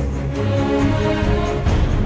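Background music: held notes over a steady low bass.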